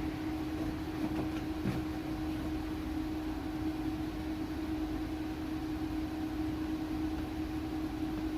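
A steady low mechanical hum at one pitch, with a few faint clicks and knocks about one to two seconds in.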